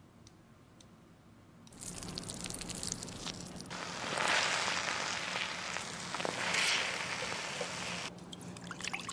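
Cooked rice being pounded and mashed in a bowl with a wooden pestle: a wet squishing, crunching noise that starts about two seconds in, swells twice, and eases off near the end.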